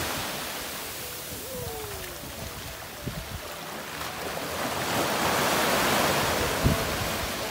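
Small waves breaking and washing up the sand at the water's edge, the wash easing off and then swelling again around the middle.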